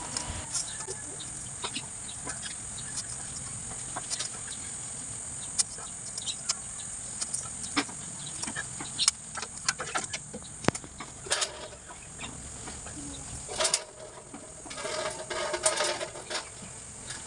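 Scattered light clicks and scrapes of a band-type oil filter wrench on a stuck oil filter, worked loose a little turn at a time, over a faint steady hiss. A bird calls several times near the end.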